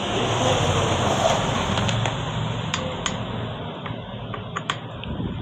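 A few light clicks of a screwdriver working the screw that holds an induction heater's IGBT to its aluminium heat sink, over a broad background noise that swells in the first second or two and then slowly fades.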